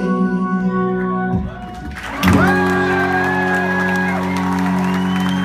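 Live band music at the end of a song: a sustained organ-like chord rings on, dips briefly about a second and a half in, then a new chord is struck on an acoustic guitar about two seconds in and held as the closing chord.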